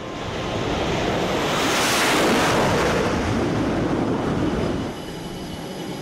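Aircraft carrier steam catapult venting steam on the flight deck: a loud hissing rush with a rumble underneath, building to a peak about two seconds in, then dropping off sharply about five seconds in.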